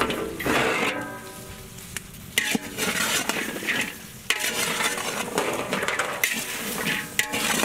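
Chopped okra (lady finger) sizzling as it fries in a large metal pot, stirred and turned with a metal ladle and perforated skimmer that scrape and clink against the pot several times.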